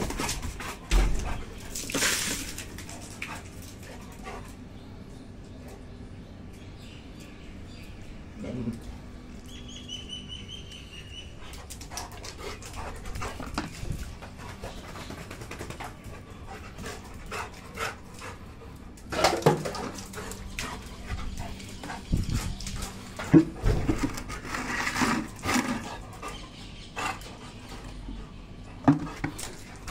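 Black Labrador retriever moving about a wet floor, sniffing and lapping at puddles, with a few short dog vocal sounds; the sounds come louder and more often about two-thirds of the way through.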